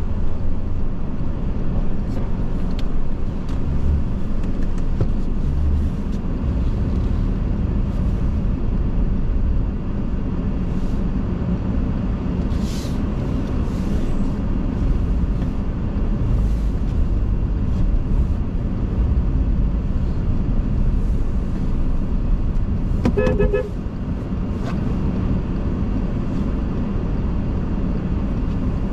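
A car driving, with a steady low rumble of engine and road noise. About three-quarters of the way through, a car horn sounds once, briefly.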